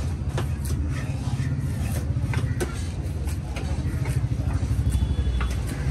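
Large knife slicing fish on a wooden chopping block, giving short sharp knocks at irregular intervals, over a steady low engine rumble.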